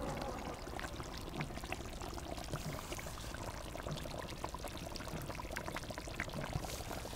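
Thick fish curry gravy simmering in a large aluminium kadai over a wood fire, bubbling with a steady hiss and many small irregular pops.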